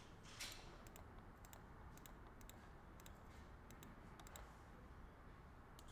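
Faint typing on a computer keyboard: light, irregular clicks about two a second, some in quick pairs, over quiet room tone.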